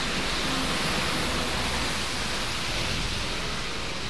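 Steady hiss of truck tyres through water on a wet road, mixed with rain, swelling a little as a tanker truck passes and then easing off.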